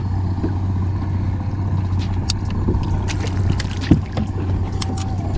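Kayak on choppy sea: water slapping against the hull with scattered short knocks, over a steady low rumble.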